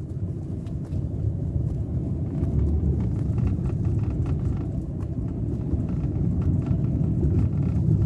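Steady low rumble of a car's engine and tyres on the road, heard from inside the cabin while riding.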